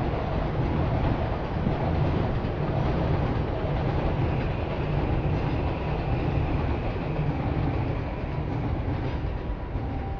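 A train passing with a steady, loud rumble and a faint high wheel squeal partway through, easing off near the end.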